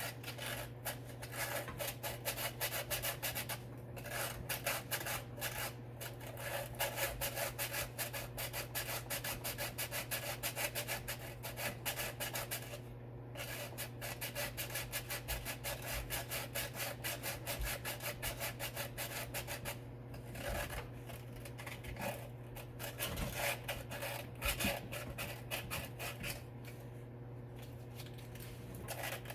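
Hand sanding of rusty steel with sandpaper or a Scotch-Brite pad: quick back-and-forth scrubbing strokes with a few short pauses, taking the rust off so a ground strap bolt makes good electrical contact.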